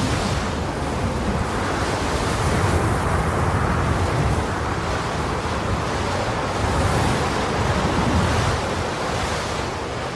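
Rushing, wind- or surf-like ambient noise with a low rumble underneath, swelling and easing every few seconds.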